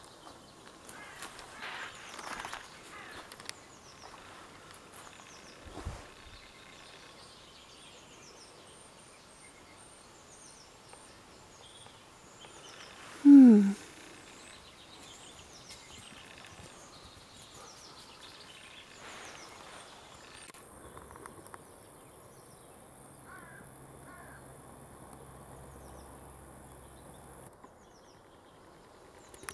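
Small birds chirping and singing in spring woodland, with a few rustles and a thump in the first seconds. About thirteen seconds in comes one loud, short call close by that falls steeply in pitch.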